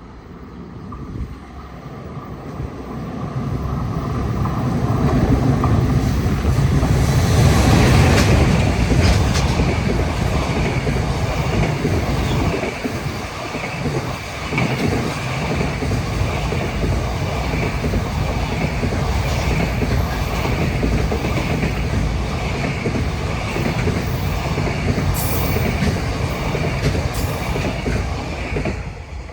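Freight train passing a level crossing: an EF210 electric locomotive hauling a container block train. It draws near and is loudest about eight seconds in, then the container wagons roll by in a steady rumble with clacks from the rails, which cuts off sharply just before the end. The crossing's warning bell keeps ringing in a steady repeating pattern throughout.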